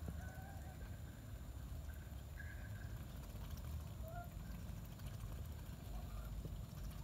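Domestic geese giving a few faint, short calls while feeding at a trough, over a steady low rumble.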